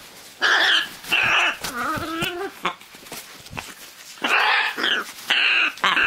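Scarlet macaw giving short, harsh calls in two groups of three, with a quiet gap of about two seconds between them.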